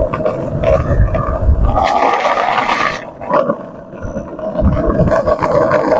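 Skateboard wheels rolling fast on an asphalt road with a steady rolling roar, and wind gusting on the microphone in low rumbling surges.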